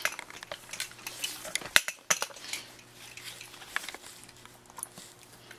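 Scattered light clicks and taps of a handheld camera being handled and swung about, with one sharper click about two seconds in, over a faint low steady hum.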